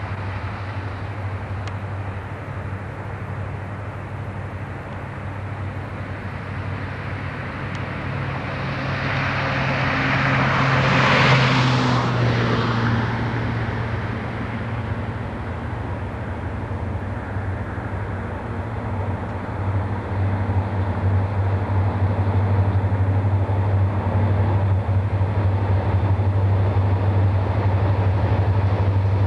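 Burlington Northern diesel freight locomotive approaching, its low engine drone growing louder as it nears. A rushing swell of noise rises and fades about ten to twelve seconds in.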